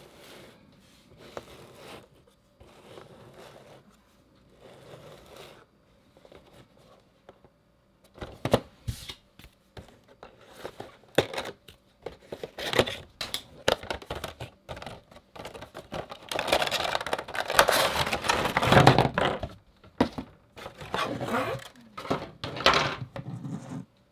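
A Funko Pop vinyl figure's cardboard window box being handled and opened: soft scraping and tapping at first, then from about eight seconds in louder clicks, tearing and crinkling as the box is opened and the plastic insert pulled out, with the loudest stretch of crinkling a little past halfway.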